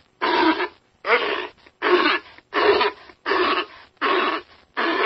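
A pinniped giving a steady series of hoarse barks, about one every three-quarters of a second, seven in all.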